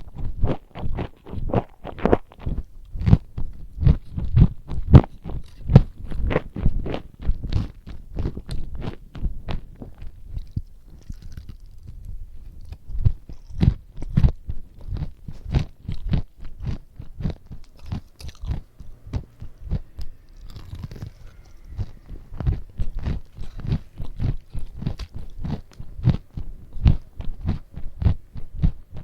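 Close-miked chewing and biting of food, with crunches, at about two to three chews a second, easing off briefly twice along the way.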